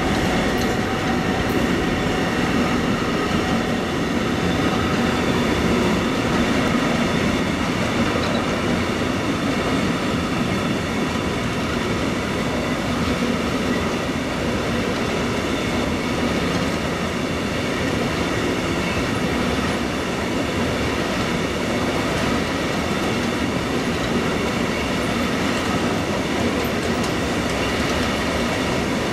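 A freight train of loaded car-transport wagons rolling past at steady speed: a continuous rumble and clatter of steel wheels on the rails, with a faint high ringing over it.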